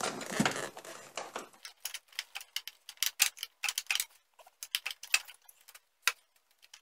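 15 mm wrench clicking in quick, uneven ticks as it unscrews the door-jamb dome-light switch from a Jeep Cherokee XJ's door pillar, after a second or so of rustling handling.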